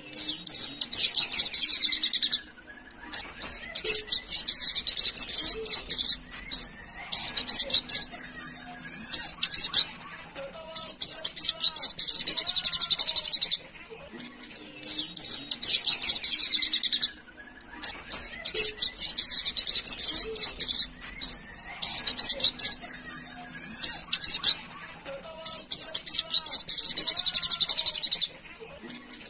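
Sunbird (sogok ontong) song: bouts of rapid, high twittering, each a second or two long, repeated again and again with short pauses between.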